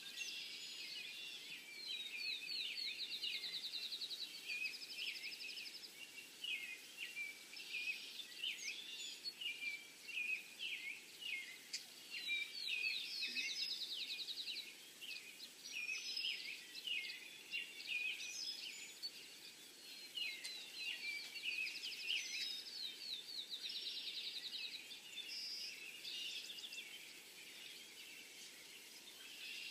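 Birds calling: a steady run of short, high chirps, with a fast trill every several seconds.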